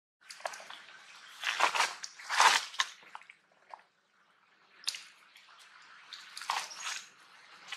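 Irregular squishing, splashing and crinkling noises in uneven clusters, loudest about two seconds in and again near the end: water sloshing in a plastic bottle as it is handled, and a baby macaque drinking from it.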